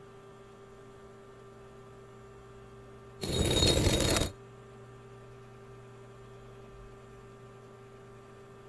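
A steady low hum, broken about three seconds in by one loud burst of noise lasting about a second.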